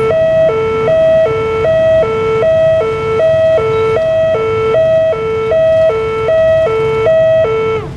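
Railway level-crossing warning alarm sounding as the barrier booms rise: a loud electronic two-tone signal alternating high and low about every 0.4 s. It cuts off suddenly near the end, over a low rumble of waiting motorcycle traffic.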